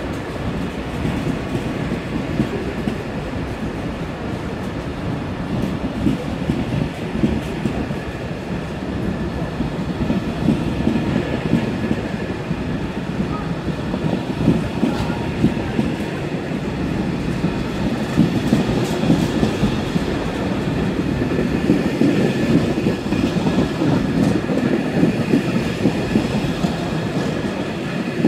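SNCB M6 double-deck passenger coaches of an intercity train rolling past at low speed. Their wheels make a steady rumble with rapid clicking over the rail joints, growing a little louder in the second half.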